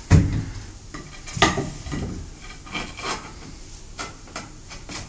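A marble threshold set down on a rough, gritty concrete floor and shuffled into place: a knock just as it begins, then irregular scraping and light clicks of stone on grit.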